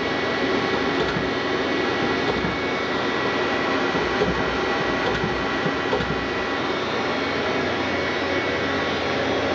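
Steady machinery drone with a thin, steady high whine, from a Dahlih MCV-510 CNC vertical machining center standing under power.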